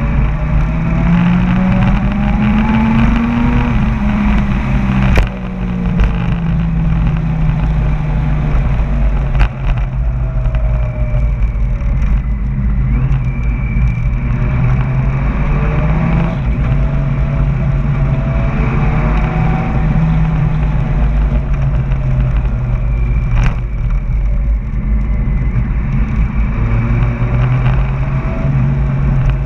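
Motorcycle engine running under way, its pitch rising and falling again and again as it accelerates and eases off through the bends. There are three sharp clicks along the way.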